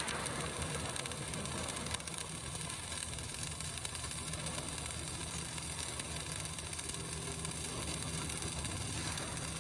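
CO2 MIG welding arc running steadily with an even buzz, laying the second zigzag-weave pass of a vertical-up (3G) weld with current and wire speed turned up slightly.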